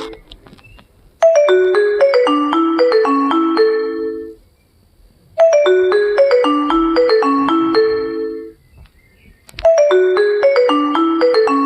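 Nokia mobile phone ringtone: a short marimba-like melody of quick notes ending on a few held notes, played three times with a pause of about a second between repeats.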